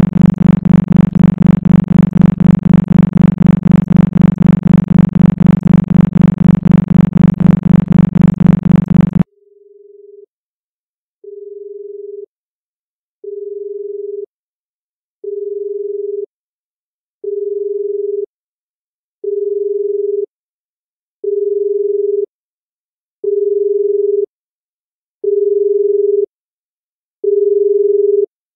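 Synthesized isochronic brainwave-entrainment tones: a low, buzzy tone pulsing rapidly, which cuts off suddenly about nine seconds in. A single pure beep then repeats about once every two seconds, each beep about a second long and louder than the last.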